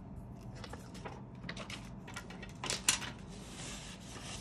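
Paper sheets being handled and swapped: scattered rustles and light taps, a sharp knock about three seconds in, then a soft sliding hiss lasting about a second.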